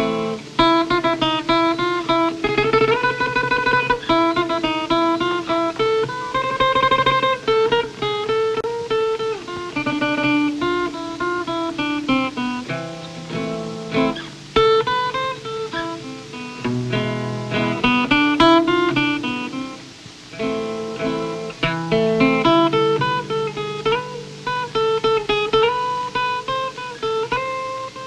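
Guitar music: a melody of separately picked notes moving over lower bass notes.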